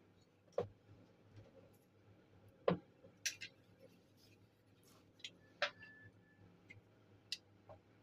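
Scattered clicks and light knocks of a metal-finned CPU cooler, its plastic shroud and a hot glue gun being handled and set down on a work mat, the loudest nearly three seconds in.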